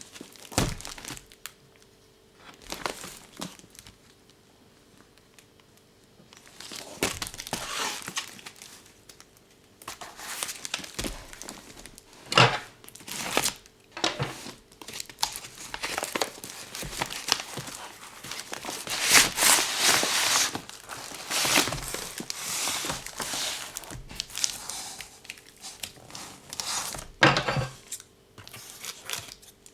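Packaging being crinkled and torn open by hand to unbox a book, in irregular bursts with a few sharp louder crackles.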